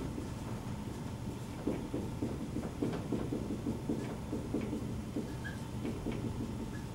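Dry-erase marker writing on a whiteboard: faint, irregular scratchy strokes with a couple of short squeaks near the end, over a steady low room hum.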